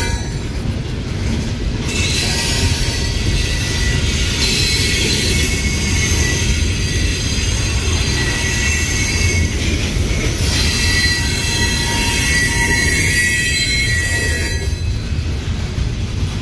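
Loaded coal hopper cars rolling past at close range: a steady low rumble with high-pitched wheel squeal that drops out briefly near the start and again near the end.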